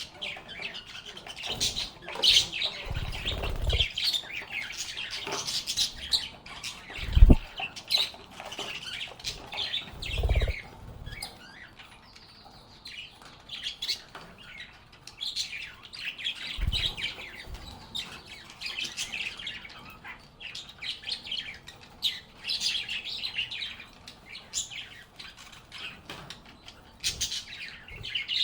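A group of pet lovebirds chirping and squawking in quick, irregular bursts. A few low thumps come through about 3, 7, 10 and 17 seconds in, the loudest at about 7 seconds.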